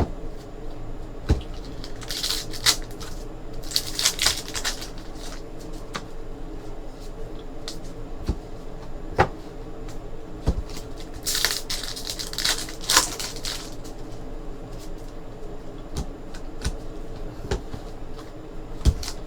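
Trading card packs and cards being handled at a table: two stretches of foil wrapper tearing and crinkling, with scattered sharp clicks and taps of cards, over a steady low hum.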